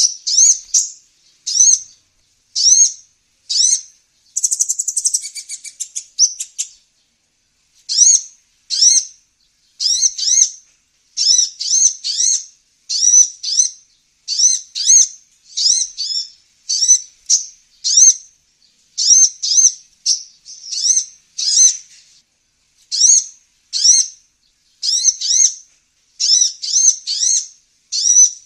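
Olive-backed sunbird song played as a lure call: high, sharp chirps repeated about one to two a second, with a rapid buzzy trill about four seconds in.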